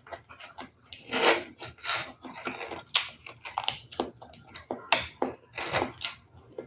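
Irregular clicks, knocks and short scrapes of kitchen utensils and ingredients being handled while cooking, several a second, with the louder scrapes about a second apart.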